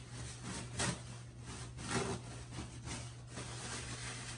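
Paper napkin being crumpled and rubbed in a series of short scratchy strokes, two of them louder about one and two seconds in, over a steady low hum.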